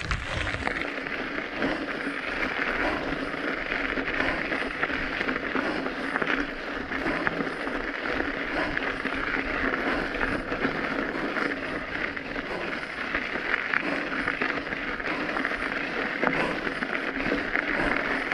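Steady rolling noise of tyres on a loose gravel dirt road, mixed with wind rushing over the microphone while riding.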